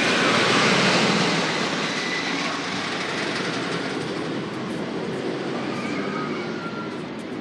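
Roller coaster train rumbling along its track, loudest about a second in and then slowly fading.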